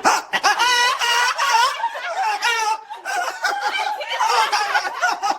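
Women laughing hard in high-pitched, repeated bursts of giggling.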